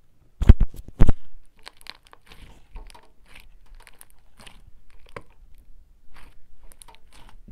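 Close-miked handling of a white earphone cable and its plastic in-line remote against the microphone. Two heavy thumps about half a second and a second in, then a run of small irregular crackly clicks and scrapes.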